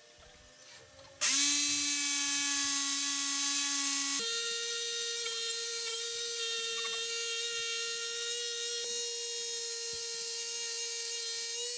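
An INGCO jigsaw, mounted blade-up under a small table, starts about a second in and runs with a steady whine while cutting a curved line through a wooden board. Its pitch steps up about four seconds in, then holds steady until the motor winds down at the end.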